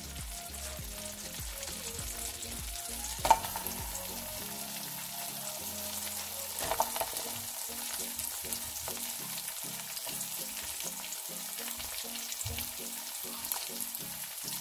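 Sliced onions sizzling in melted butter in a pan, a steady frying hiss, with a sharp click about three seconds in and a smaller one near seven seconds.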